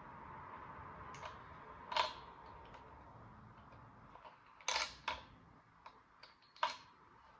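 A few sharp clicks and taps of small plastic toy pieces being handled and unboxed, over a steady faint hiss. The loudest click comes about two seconds in, and there are two more strong ones in the second half.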